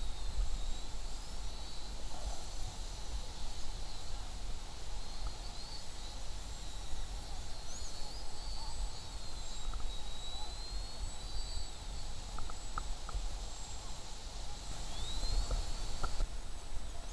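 Distant radio-controlled model airplane's motor, a thin high whine whose pitch slides up and down as it flies, over low wind rumble on the microphone.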